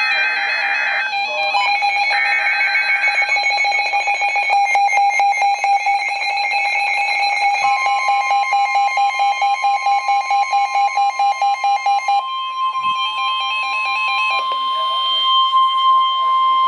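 NOAA Weather Radio emergency alert signals. The last of the buzzing SAME digital header bursts sound in the first few seconds. A warbling, fast-pulsing electronic alarm runs until about 12 seconds in, and the steady single-pitch 1050 Hz warning alarm tone starts about 8 seconds in and holds, which signals that a warning is about to be read.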